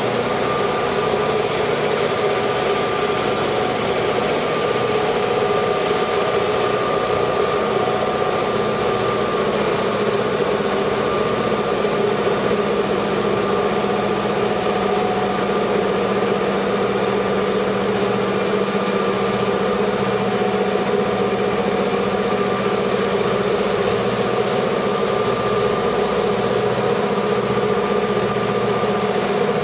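EMD GP38 diesel-electric locomotives, with two-stroke V16 engines, working hard at a slow crawl as they pull a freight train up a steep grade. The engine sound stays steady and even, with no change in pitch.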